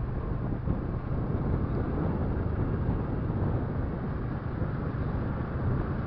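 Motorcycle riding along at a steady cruising speed: the TVS Apache RTR 180's single-cylinder engine running evenly under a steady rush of wind and road noise on the microphone.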